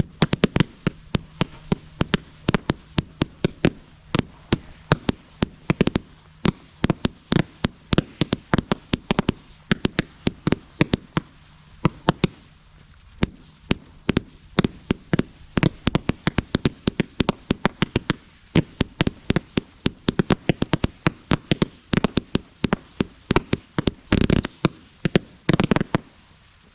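Wizard Fireworks Z-shaped brocade-tail fan cake firing: a long run of sharp pops and bangs, several a second, with a couple of brief lulls, stopping near the end.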